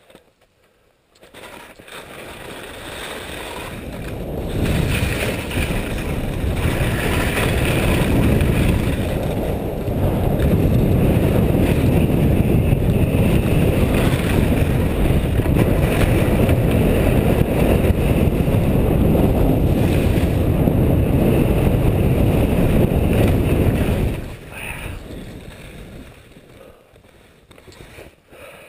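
Rush of wind over the microphone and skis sliding on snow during a fast ski descent down a couloir: a loud, steady rushing that builds over the first few seconds, holds for about twenty seconds, then dies away near the end as the skier slows.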